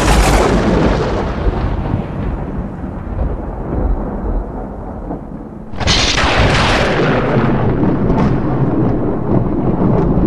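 Two loud booming crashes, each rolling away in a long rumble. The first comes at the start and fades over about five seconds; the second breaks in sharply about six seconds in.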